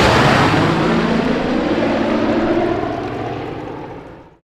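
Propeller aircraft engines droning, fading out about four seconds in.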